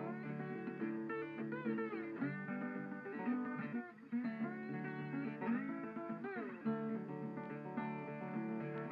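Background music led by a plucked guitar, with notes that bend and slide.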